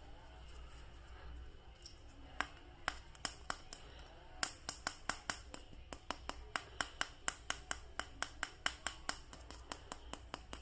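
A quick run of sharp plastic clicks from a toy action figure or its packaging being handled. The clicks start about two seconds in, sparse at first, then come about four or five a second.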